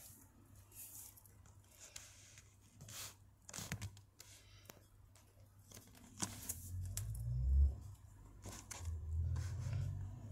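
Dwarf hamster nibbling food, a scatter of short crisp crunching clicks. A low rumble of handling noise comes in past the middle and is loudest there.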